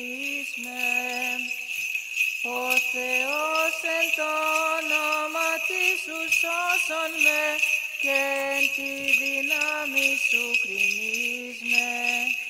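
A cantor chanting a Byzantine hymn in Greek: one male voice holding and bending long, melismatic notes, with a short pause about two seconds in. Under it the small bells of a swung censer jingle without a break.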